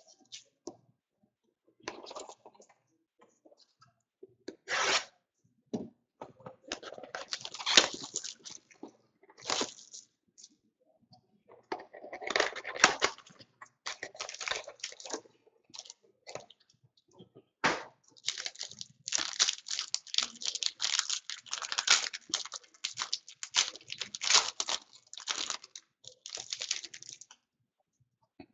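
A boxed Panini Prominence football card pack being torn open by hand: its cardboard and wrapper tear and crinkle in irregular bursts, with a few sharp snaps.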